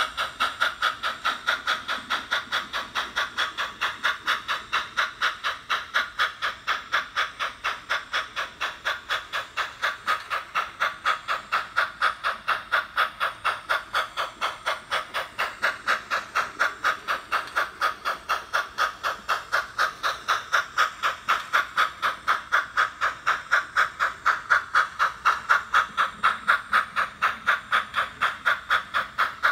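Soundtraxx Tsunami 2 sound decoder in an HO scale Norfolk and Western 2-8-0 Consolidation model, playing steam exhaust chuffs through its small onboard speaker as the locomotive pulls its train. The chuffs come in a steady, even rhythm of about three a second.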